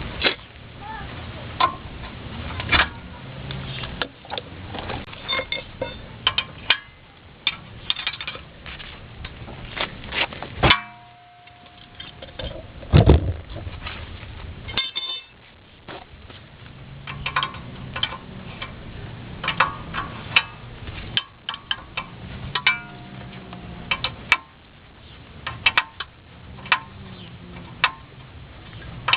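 Steel hand tools clinking and knocking against the metal of a truck's front axle flange and brake rotor as the flange bolts are worked loose, in irregular sharp clicks, some with a short ring.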